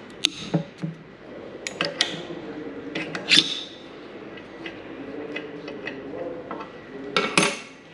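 Metal clinking and knocking as wrench and steel parts strike the aluminium motor housing and a steel press sleeve. The strikes are scattered and sharp, loudest about three and a half seconds in and again in a cluster near the end.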